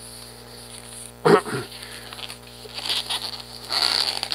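Latex twisting balloon squeaking as it is twisted: one loud squeak falling in pitch a little over a second in, then rubbing squeaks of latex on latex as the balloon is worked by hand.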